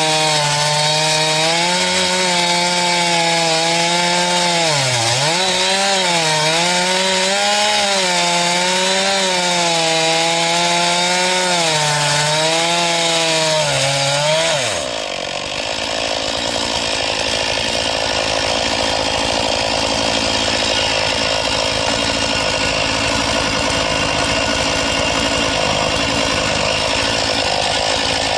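Chainsaw on an Alaskan chainsaw mill cutting through a cedar log, the engine held at high revs under load, its pitch wavering and dipping as the chain bites. About halfway the steady engine pitch gives way abruptly to a rougher, noisier sawing sound.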